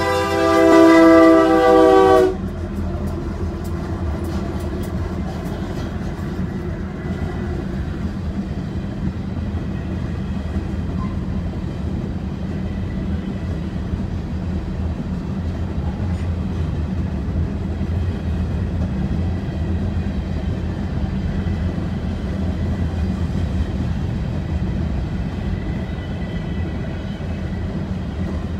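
Freight locomotive air horn sounding a chord that cuts off about two seconds in, then the steady low rumble of freight cars rolling past a level crossing, heard from inside a car.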